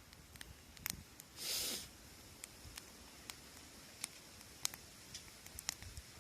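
Wood fire crackling: sparse, irregular sharp pops and snaps, with a short hiss about a second and a half in.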